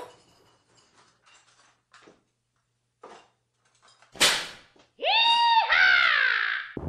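A sudden short rushing noise about four seconds in, then a high-pitched cry for nearly two seconds, held at first and then falling in pitch.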